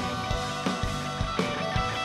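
Live rock band playing an instrumental passage with no singing: electric guitar and sustained chords over a steady drum beat.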